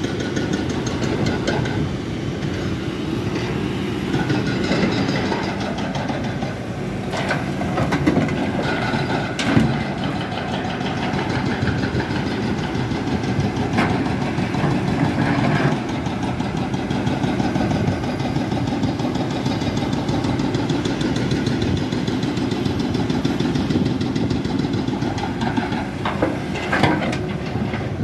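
Caterpillar 320D excavator's diesel engine running steadily at work, with a few sharp knocks and thuds of rock and earth dropping into a steel tipper-truck body.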